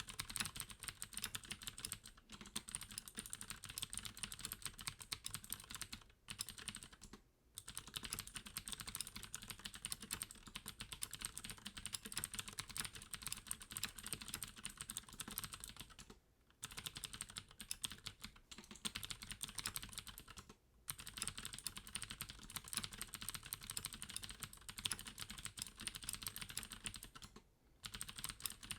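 Fast continuous typing on a Deck Hassium Pro mechanical keyboard with clicky Cherry MX Blue switches, dense rapid key clicks with a few brief pauses between bursts. The case is fitted with Deck's own sound-dampening foam.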